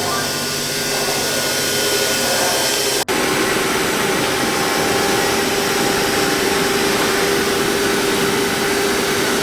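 Large CNC milling machine cutting wood, a steady loud whirring hiss. About three seconds in the sound cuts out for an instant, then resumes with a steady hum running under it.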